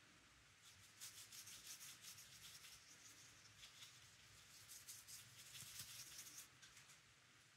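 Faint, scratchy strokes of a paintbrush's bristles rubbing on watercolour paper: a quick run of short, hissy strokes that stops near the end.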